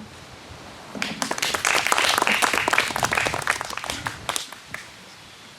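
Audience applauding: clapping starts about a second in, swells, and dies away a few seconds later.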